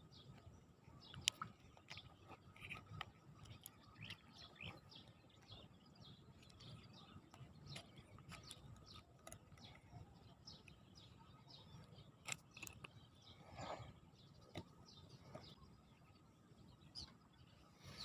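Near silence with faint, scattered bird chirps throughout and a few sharp clicks, the loudest about a second in.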